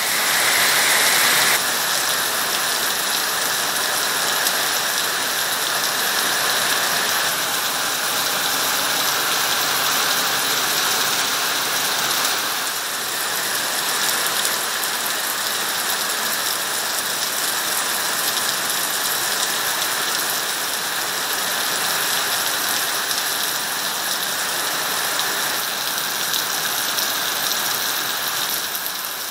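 Heavy rain falling in a steady downpour, a dense even hiss.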